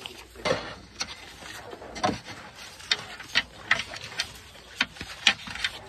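Sheet music and folders being handled close by: paper rustling and sliding, with about a dozen irregular sharp clicks and knocks.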